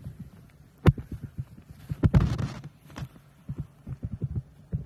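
Irregular low thumps and rumble on the microphone, with a sharp knock about a second in, another about three seconds in, and a brief rustling burst just after two seconds.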